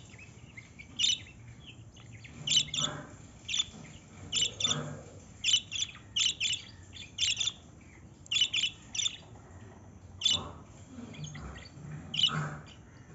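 A bird chirping: a dozen or so short, high chirps at irregular intervals, many coming in quick pairs.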